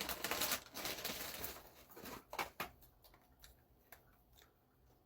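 Packaging and shopping bags crinkling and rustling as souvenir snacks are handled. The crinkling is densest in the first second and a half, followed by a few sharp crackles and then quieter handling.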